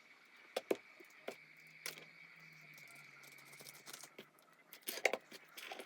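Scattered small clicks and rustles of hands putting small items into a balloon, with a quick cluster of clicks about five seconds in.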